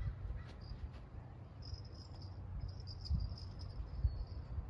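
An insect trilling high and thin in broken stretches from about one and a half seconds in until near the end, over a low, uneven rumble.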